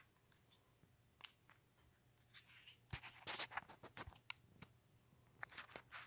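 Near silence: a Hunter ceiling fan running quietly, a faint steady low hum, with scattered small clicks and scratchy ticks, most of them bunched about three seconds in.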